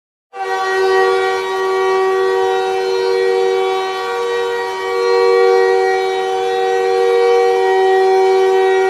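Montreal Canadiens hockey goal horn sounding one long, steady blast, two notes held together as a chord.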